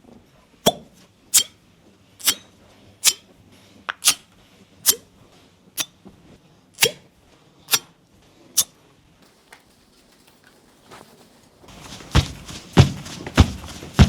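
A steady run of about ten sharp clicks, roughly one a second, from copper-cup fire cupping and massage work on the body. After a few seconds of near quiet, rustling with heavier thumps about twice a second starts near the end.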